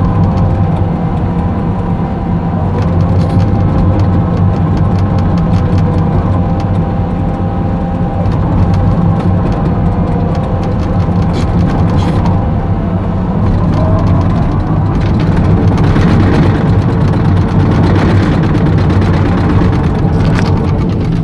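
Caterpillar 320D2 excavator travelling on its tracks, heard from inside the cab: the diesel engine runs steadily under a steady whine. Past the middle the sound turns noisier and brighter for several seconds as the tracks work over loose soil downhill.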